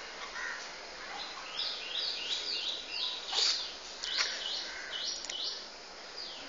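A bird singing a quick run of high, repeated chirps, about three a second, starting about a second and a half in and stopping near the end, with a couple of sharp clicks in the middle.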